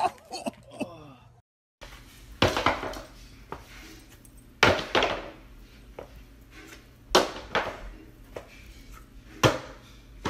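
Sneakers thrown one at a time and landing on a hardwood floor in a small room: four hard smacks, a little over two seconds apart, each with a short echo.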